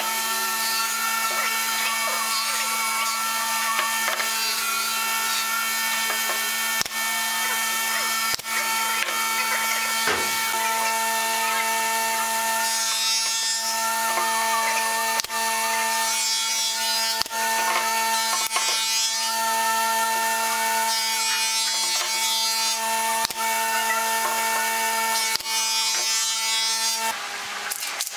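Pneumatic brad nailer firing nails into pine strips, about ten sharp shots spaced one to four seconds apart, over a steady hum of several held tones.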